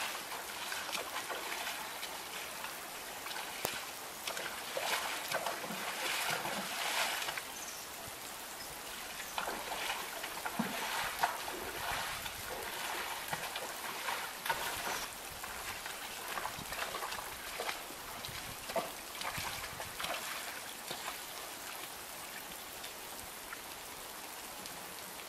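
Steady rain falling in a thunderstorm, with an even patter and scattered louder drips and splashes of water.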